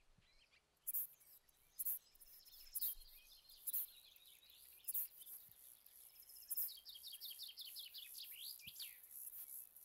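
Saddle bush-cricket stridulating: short, very high-pitched chirps about once a second. Over the second half a bird sings a fast run of downward-sliding notes.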